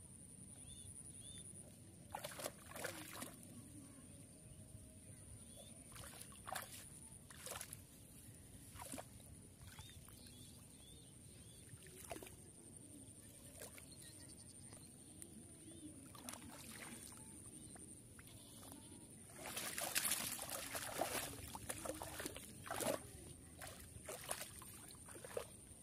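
Hands splashing and sloshing in shallow, muddy field water while grabbing at catfish: scattered short splashes, the loudest run of them about twenty seconds in. A faint, steady high whine runs underneath.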